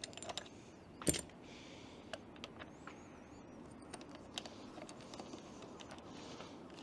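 Scattered small clicks and knocks as a telephoto lens is handled and its tripod quick-release plate is swapped, with one sharper click about a second in.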